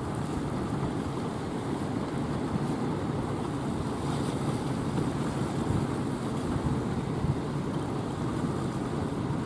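Rough sea surf and wind, a steady rushing noise with wind buffeting the microphone.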